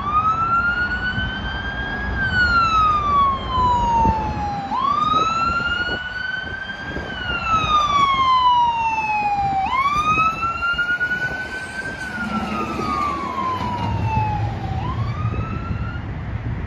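Fire rescue truck's siren on wail, sweeping slowly up and down in pitch about once every five seconds. The truck's engine and road noise rumble underneath.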